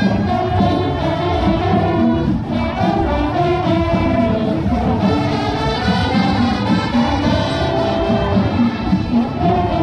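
Marching band playing loud and steady, with brass carrying the tune.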